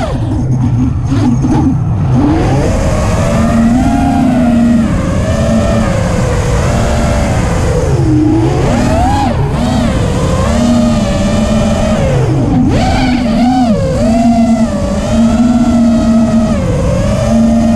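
Motors and propellers of a radio-controlled aircraft, heard from its onboard camera: a loud, continuous whine whose pitch keeps rising and dipping as the throttle changes.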